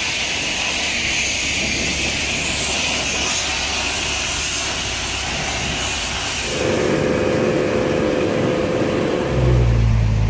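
Steady hiss of a car-wash pressure washer spraying. About nine seconds in, the Cadillac ATS-V's twin-turbo V6 starts and settles into a low, steady idle, louder than the hiss.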